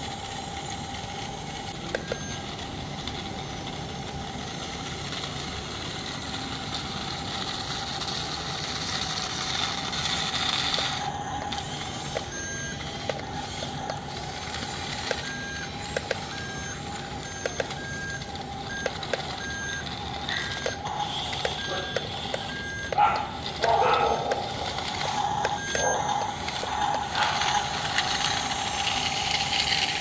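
Yi Gong BC1046 9-channel toy RC bulldozer running, with a steady whine throughout. Short beeps repeat like a reversing warning through the middle stretch, with scattered light clicks. Louder rattling bursts come in the last several seconds.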